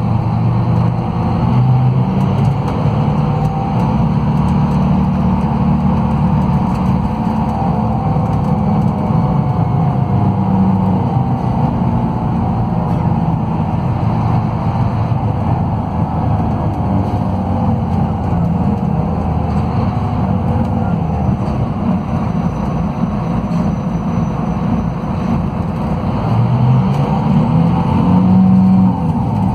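Scania DC13 inline-six diesel of a rear-engined coach running under way, heard inside the passenger cabin over road and tyre noise, its note shifting slightly with speed. Near the end the engine note rises and gets louder, then drops off.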